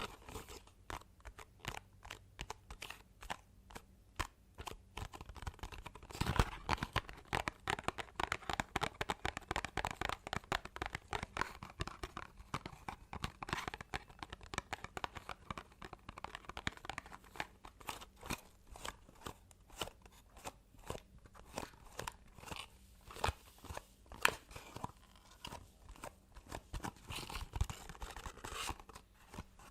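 Fast, irregular ASMR tapping: fingers tapping quickly on small objects, many sharp taps. Stretches of dense crackly scratching and rustling come in about six seconds in and again near the end.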